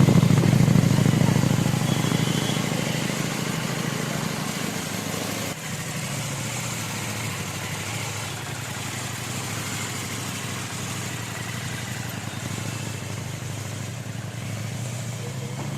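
Motorcycle engine running, louder for the first couple of seconds, then easing to a steady lower hum, with an abrupt change about five and a half seconds in.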